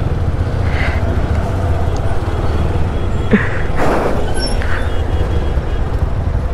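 Low steady rumble of motorcycles and traffic, with a few brief higher sounds over it, the loudest a short burst of hiss about four seconds in.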